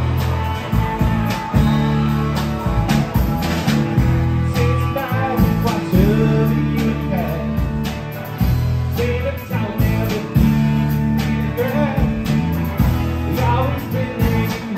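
Live band playing with electric guitars, electric bass and drum kit, drums keeping a steady beat, and a man singing over it at times.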